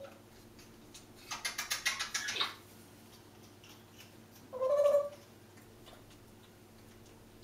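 Congo African grey parrot making a rapid run of clicking noises for about a second, then a short, low whistled note about two seconds later.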